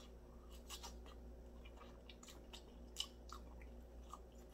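Quiet chewing of a sauced fried chicken drumstick: soft scattered mouth clicks and smacks, one a little sharper about three seconds in, over a faint steady low hum.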